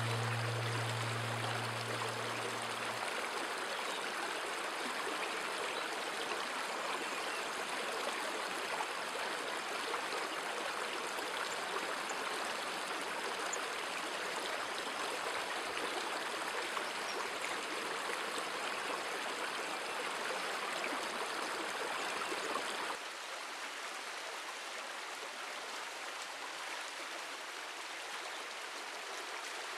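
Stream water running steadily, an even rushing hiss. A low steady tone dies away in the first three seconds, and the water sound drops a little quieter about 23 seconds in.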